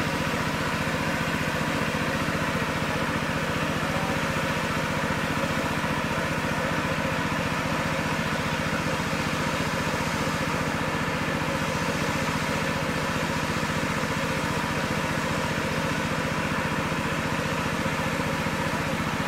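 A small engine running steadily at an even speed, with no change in pitch or level.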